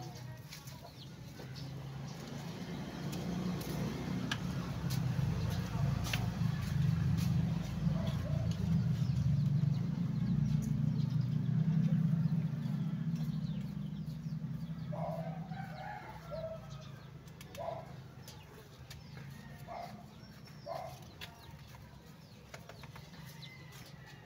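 A low motor hum swells over several seconds and then fades away, like a passing engine. Near the end come several short clucks from chickens.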